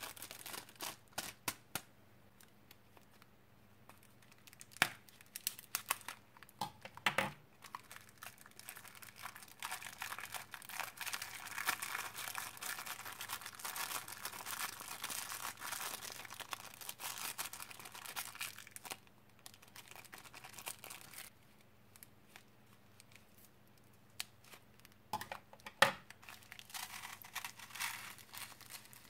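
Small plastic bags crinkling and being torn open, with foam beads pouring and rustling out into a glass dish. A long stretch of steady rustling in the middle, and a couple of sharp clicks.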